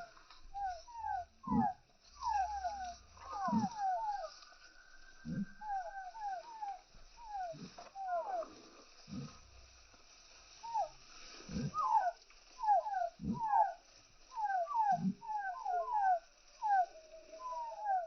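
Chickens calling: a stream of short, falling peeps, with a low cluck about every two seconds.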